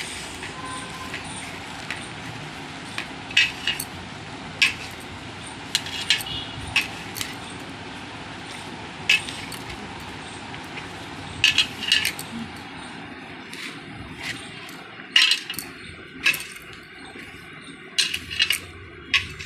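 A hand mixing sattu flour with chopped onion in a steel plate, its bangles clinking against each other and the plate: irregular sharp clinks, some in quick pairs or clusters, over a steady background hiss.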